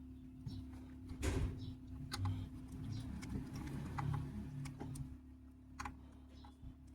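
Faint clicks and scraping of a small screwdriver tightening a wire's screw in a ceiling fan's terminal connector block, with handling noise, over a steady low hum.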